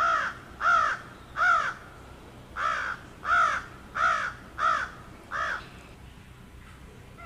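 Crows cawing: about eight harsh caws, each a short arched call, three in a row, then a short pause, then five more.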